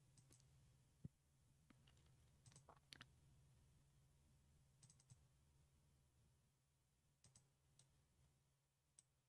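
Near silence: a faint steady hum with a few faint, scattered computer mouse clicks.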